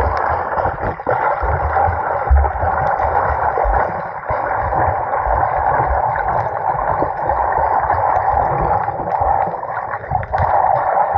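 Muffled, steady rush of sea water heard from underwater in shallow sea, with irregular low thumps and knocks of the water moving against the camera.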